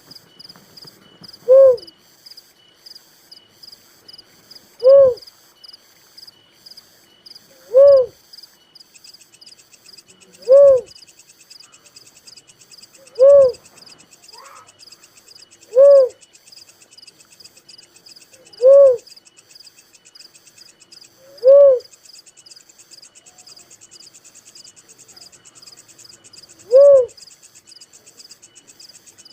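A dove calling a single low, arched coo note about every three seconds, nine times, with one longer pause near the end. Insects chirr steadily and rhythmically behind it.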